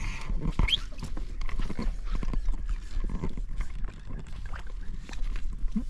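Irregular knocks and scrapes of a landing net and its pole against an inflatable boat, with water sloshing as a big carp is brought up to the net. A low rumble runs underneath, and a brief squeak comes about a second in.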